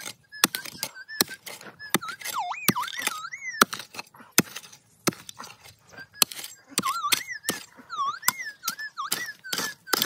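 A pick-mattock striking into hard, gravelly ground again and again, about one or two sharp knocks a second. A bird sings warbling, gliding whistles over the digging.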